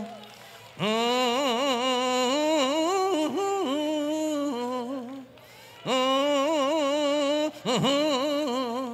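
A man humming a slow, drawn-out tune with a wavering vibrato, in two long phrases with a short pause about five seconds in.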